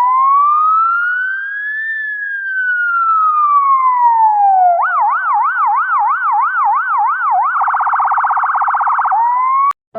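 Electronic ambulance siren sound effect. It goes through a slow wail rising and falling once, then a faster yelp about three cycles a second, then a very rapid warble, and cuts off near the end.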